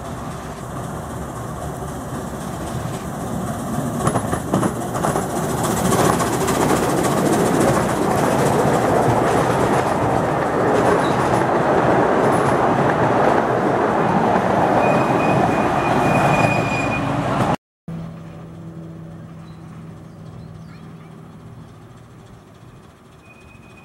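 Miniature-railway steam tank engine and its passenger carriages passing close by, wheels clattering and rumbling over the track. The sound builds as the train approaches and stays loud while the carriages go past, then cuts off abruptly. It resumes quieter and fades away.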